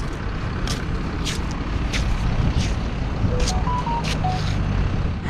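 Outdoor roadside ambience: a steady low rumble of wind and distant road traffic, with scattered short clicks. A little past halfway, a few short whistle-like notes sound at different pitches.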